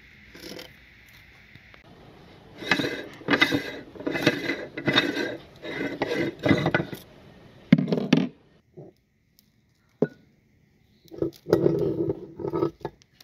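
Metal meat grinder being taken apart by hand: the ring, cutting plate and blade scrape and clink against the barrel in several bouts of clattering, with short pauses between.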